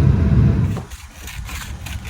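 Car engine running with a heavy low rumble that drops away sharply a little under a second in, leaving a quieter low engine sound with scattered crackles.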